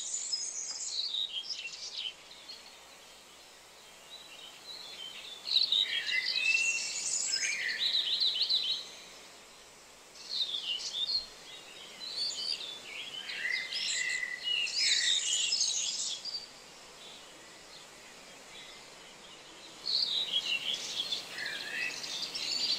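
Songbirds chirping and twittering in about four bursts of high song, over a steady outdoor hiss.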